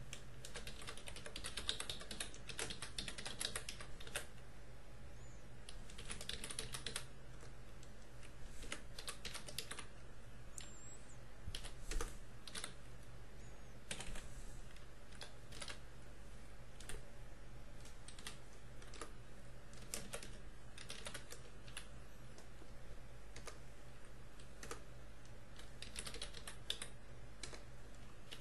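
Computer keyboard typing: runs of quick keystrokes broken by pauses and single key taps, over a steady low hum.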